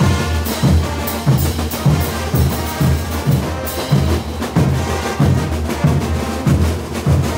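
Full Bolivian street brass band playing: pairs of crash cymbals clashing and drums pounding out a steady beat about every two-thirds of a second, under sustained brass.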